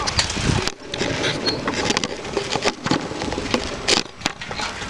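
Rushing noise on the microphone of a handheld camera carried on a moving bicycle, with short knocks and rattles as the bike rolls over the asphalt.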